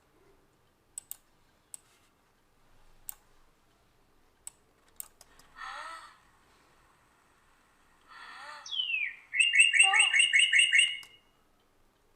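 Bird-call sound effect played back: two falling calls, then a rapid run of high, repeated chirps near the end, the loudest part. A few sharp clicks come before it.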